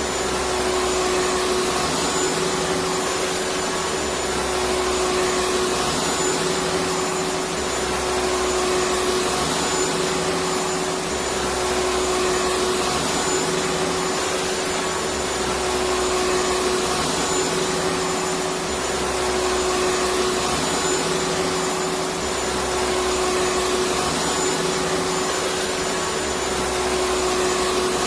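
Electric vacuum cleaner running continuously: a steady whooshing rush of air with a constant motor hum, and a slight low swell every few seconds.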